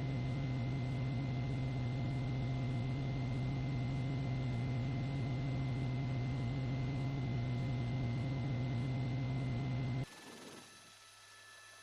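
An engine drones steadily with a strong low hum, then cuts off abruptly about ten seconds in.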